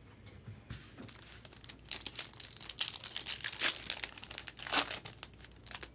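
Plastic wrapping on a box of baseball trading cards being crinkled and torn open, a busy run of crackling that starts about two seconds in and is loudest near the end.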